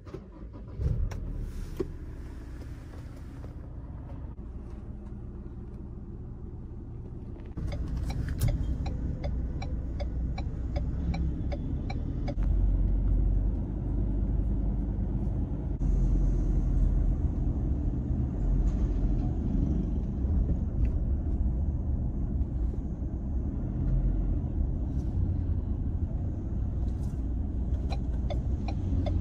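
Engine and road rumble of a Ford car heard from inside the cabin while driving, stepping up in loudness about seven seconds in and again a few seconds later. A regular ticking runs for about four seconds, starting around eight seconds in.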